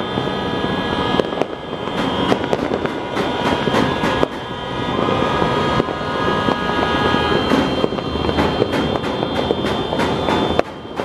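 Many fireworks and firecrackers going off across the neighbourhood at once, a near-continuous crackle of bangs and pops. Steady high-pitched tones run underneath.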